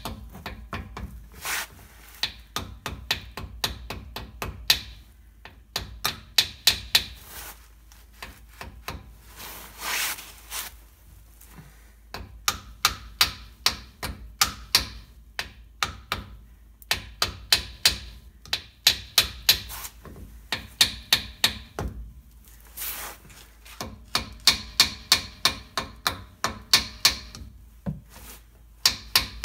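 Ball-peen hammer giving light taps to a new pinion seal, driving it into a Dana 30 front differential housing. The taps are sharp and come in quick runs of several a second, with short pauses between runs.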